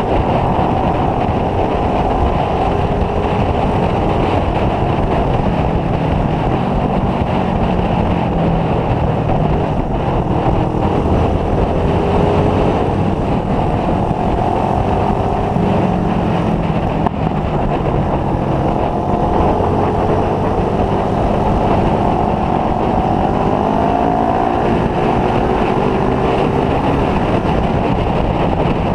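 Motorcycle engine running on the move, its pitch slowly rising and falling as the speed changes, under heavy wind rush on the microphone.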